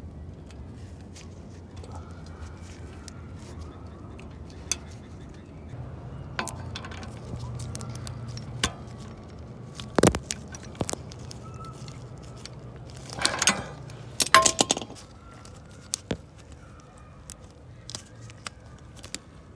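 Small metal clicks and clinks as the Audi's aftermarket lowering link and its pin retaining ring are handled and snapped onto the ball stud, with louder bursts of clinking about ten seconds in and again a few seconds later, over a low steady hum.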